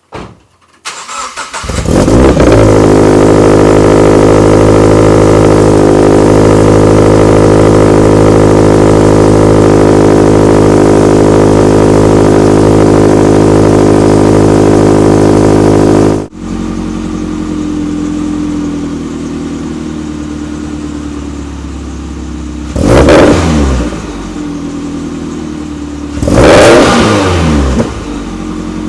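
2013 Scion FR-S flat-four engine and exhaust. It starts up and is held at a steady raised speed for about fourteen seconds. After a sudden cut it idles, with two short revs near the end.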